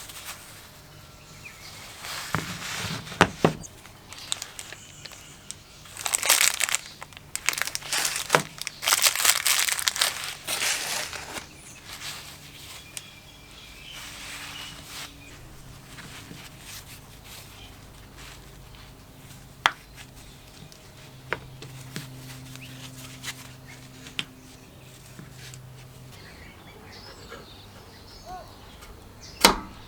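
Workshop handling noises: bursts of rustling and scraping in the first third, then a few sharp clicks and knocks, the loudest near the end, over a faint low hum.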